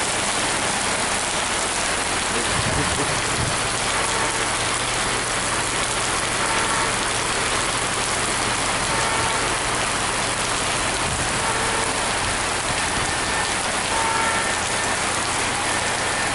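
Heavy rain pouring down steadily: an even, unbroken hiss of rain on the ground and surfaces.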